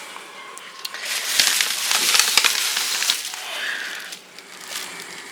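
Rustling and crinkling of food packaging, with a few light knocks, as items are lifted out of a fridge drawer. The sound is busiest in the middle and quieter toward the end.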